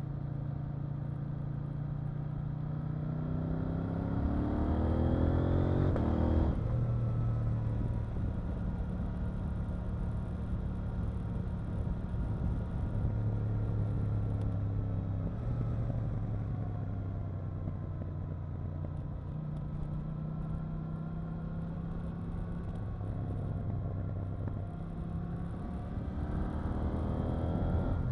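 KTM 890 Duke R's parallel-twin engine under way: the revs climb steeply for a few seconds, then drop suddenly at a gear change about six seconds in. After that the engine runs at a fairly steady pitch that wavers with the throttle, and the revs rise again near the end.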